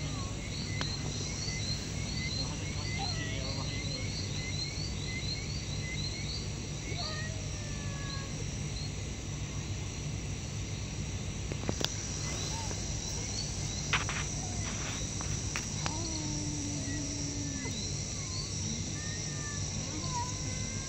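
Night chorus of crickets and other insects, with rapid short chirps through the first half and a steady high insect whine joining about twelve seconds in. A few faint sliding calls and a quick run of sharp clicks come in the middle.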